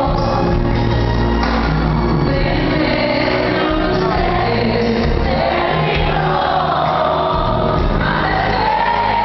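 Live pop music: a female singer sings a ballad over a band, with sustained low bass notes under the voice.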